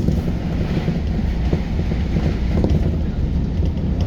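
Steady low rumble of a JR New Rapid electric commuter train running at speed, heard from inside the carriage, with a few faint knocks from the wheels and track.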